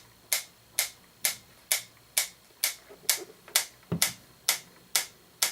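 Franz FB-4 electric metronome ticking steadily, a little over two sharp clicks a second.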